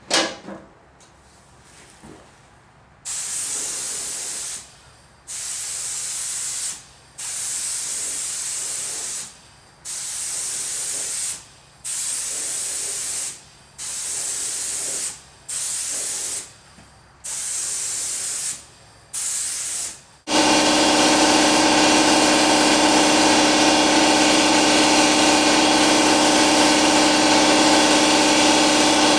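Air spray gun spraying tractor paint in about ten short hissing bursts of one to two seconds each, trigger pulled and released. About 20 seconds in, an air compressor starts and runs steadily with a loud hum, after a sharp knock at the very start.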